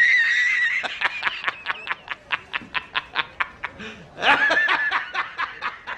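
A high-pitched snickering laugh meme sound effect in rapid, even pulses about five a second, in two bouts.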